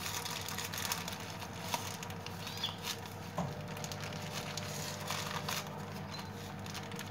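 Soft rustling and crinkling of paper as a freshly baked sponge cake sheet is rolled up in it, over a faint steady hum.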